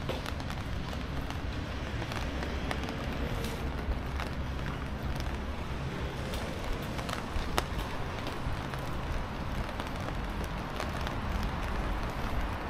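Urban street ambience: a steady low rumble of city noise with scattered light clicks and knocks.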